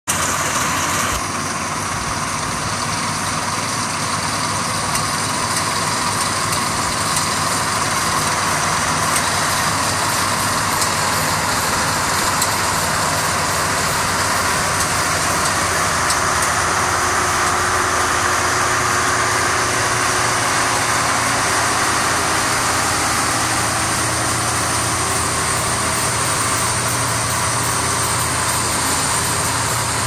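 Agriunion cab rice combine harvester at work, its engine and machinery running steadily with a constant loud mechanical noise; a low hum grows a little stronger about halfway through.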